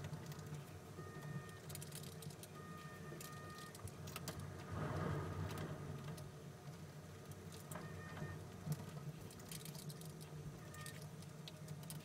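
Faint small clicks and rustles of wires and a screwdriver being handled in a plastic ceiling rose, over a low steady hum.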